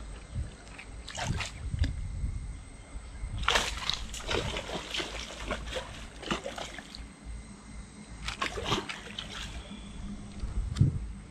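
Water splashing and sloshing in irregular bursts: a short one, then a long spell of several seconds, then another, broken by quieter gaps.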